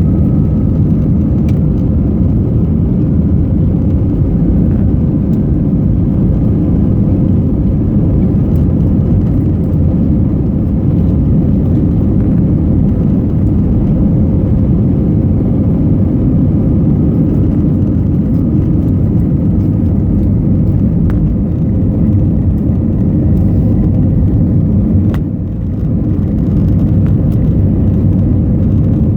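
Steady, loud jet engine and airflow noise heard inside the cabin of an Airbus A321neo with CFM LEAP-1A engines, a deep rumble with a faint steady hum above it. The level dips briefly about 25 seconds in.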